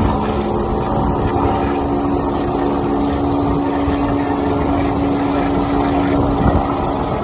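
Air ambulance helicopter climbing away: steady turbine whine and rotor noise with a constant hum.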